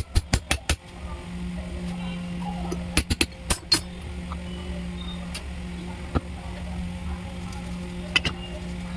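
Metal clicks and clinks of tools and parts being handled, in two quick runs of about five near the start and about three seconds in, then single clicks later, over a steady low hum.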